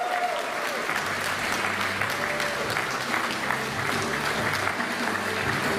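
Crowd of guests applauding, many hands clapping steadily.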